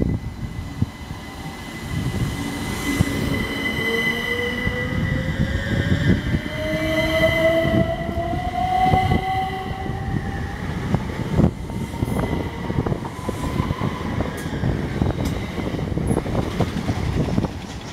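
Class 377 Electrostar electric multiple unit pulling out and accelerating past the platform: its traction motors whine, rising steadily in pitch as it gathers speed. Under the whine is a heavy rumble of wheels on rail with scattered sharp knocks from the track.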